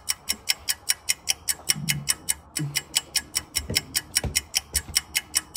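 Toy shock lie-detector game beeping rapidly, about six short beeps a second, while it reads the answer of the hand on its sensor plates. The beeping stops shortly before the end.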